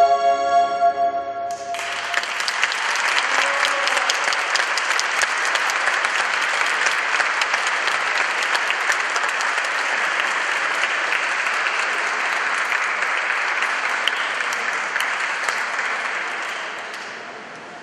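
A song's final held note with its accompaniment ends about a second and a half in, and an audience breaks into applause that runs steadily and fades out near the end.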